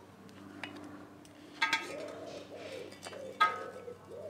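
Two sharp metallic clinks, each with a brief ring, as metal tongs set charcoal briquettes onto a cast-iron Dutch oven lid. The second clink is the louder. From about two seconds in, a pigeon coos repeatedly in the background.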